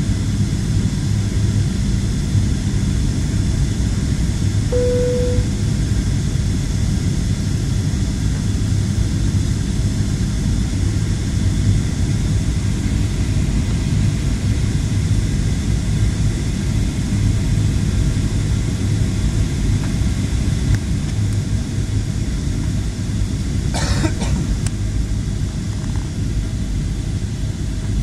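Steady rumble of an airliner cabin, with the jet engines and airflow running. A short single tone sounds about five seconds in, and a brief rattle of clicks comes near the end.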